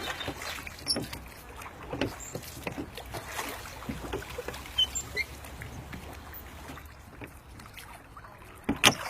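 Boats on a canal: water lapping and sloshing, with scattered small knocks and clicks and a sharper knock near the end, over a low steady hum.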